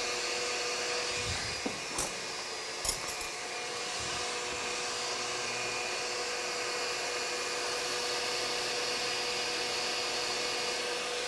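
Electric stand mixer whipping cream, its motor running with a steady whir and whine. A couple of light clicks come about two and three seconds in.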